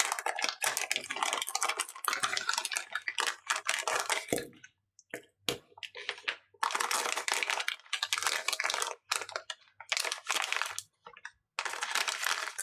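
Handling noise of small parts on a workbench: repeated crinkly rustling and light clicks in bursts, with brief pauses about five and eleven seconds in.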